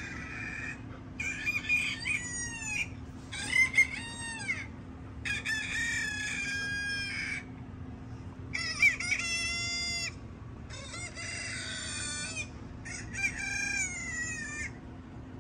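Recorded rooster crowing, about seven crows one after another, each lasting a second or two and falling in pitch at its end, over a faint steady low hum.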